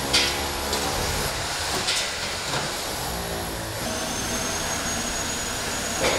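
A hand tool knocking and scraping plaster rubble off a wall and floor: about four sharp knocks in the first two and a half seconds, over a steady mechanical rumble.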